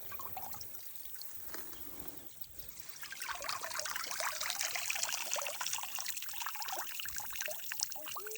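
Water trickling and pouring off a fish trap as it is lifted out of the pond. It starts about three seconds in and runs on as a dense spatter of drips and small splashes.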